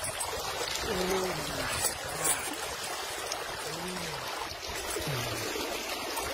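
Water streaming and splashing steadily as a metal chain is hauled back and forth through a water-filled hole in the rock, with a few light clinks of the chain.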